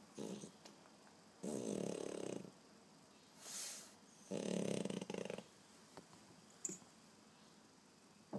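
French bulldog snoring in its sleep: two loud snores about three seconds apart, each lasting about a second, with a short softer snore at the start and a breathy hiss between the loud ones.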